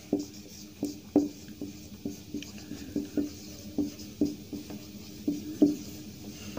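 Marker pen writing on a whiteboard: a string of short squeaky strokes, a few a second, irregularly spaced.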